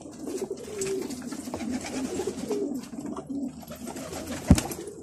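Domestic pigeons cooing, with one sharp knock about four and a half seconds in.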